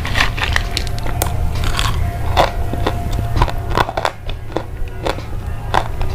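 Crunching: irregular crisp snaps and crackles, several a second, over a steady low hum.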